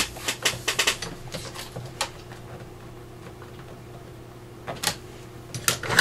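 Light clicks and taps of paper and craft tools being handled on a tabletop: several in the first second, one about two seconds in, and a few more near the end, over a faint steady hum.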